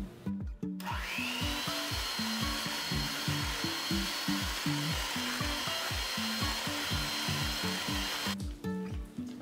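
Electric hand mixer beating butter, sugar and egg in a glass bowl. The motor starts about a second in with a rising whine, runs steadily, and cuts off near the end. Soft acoustic guitar music plays underneath.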